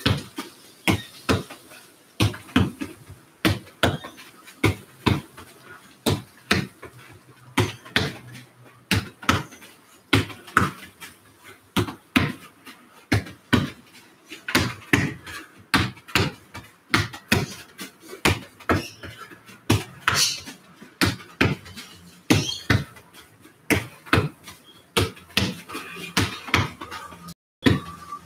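Leather football being passed against a wall with alternating left and right foot and rebounding: a steady run of sharp thuds, kick then wall hit, about two or three a second.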